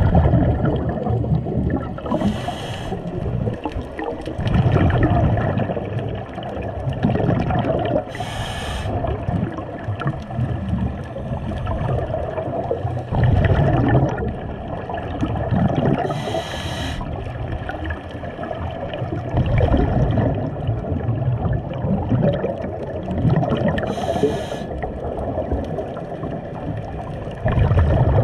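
Scuba breathing heard underwater through a diving regulator: a short hiss on each inhalation, four times at intervals of about six to eight seconds, with rumbling, gurgling bursts of exhaled bubbles in between.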